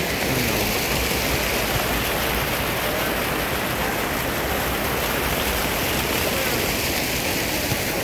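Fountain water splashing steadily into its basin, with people's voices mixed in.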